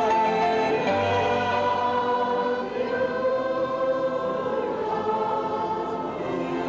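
Congregation singing together in worship, many voices holding long notes, over a piano accompaniment.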